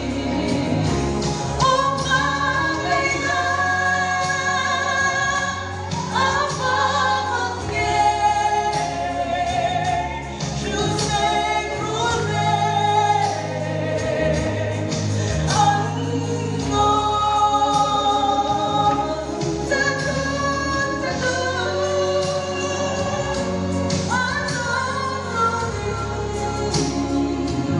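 A woman singing a gospel worship song into a microphone, holding long notes and sliding between them, over steady instrumental backing, with the congregation singing along.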